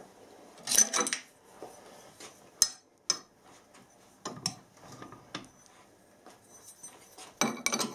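Steel tools and lathe fittings being handled, clinking and clattering in short bursts: a clatter about a second in, a few sharp single clinks in the middle, and a louder clatter near the end.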